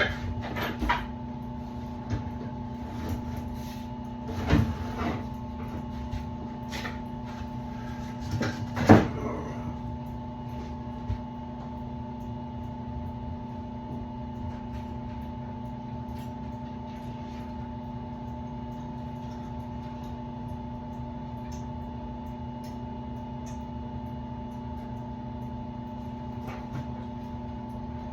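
Furnace running with a steady motor hum, with several knocks and clunks during the first ten seconds, the loudest about nine seconds in.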